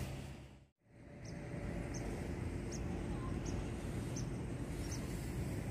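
Steady outdoor background noise by a river, with a faint short high chirp repeating about every three-quarters of a second. The sound drops out briefly just under a second in.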